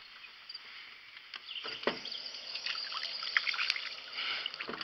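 Small bream splashing at the water's surface as it is pulled up on a fishing line: irregular short splashes starting about a second and a half in, with faint bird and insect chirps behind.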